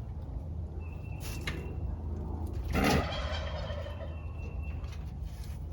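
A domestic turkey gobbling once, a short loud burst about three seconds in.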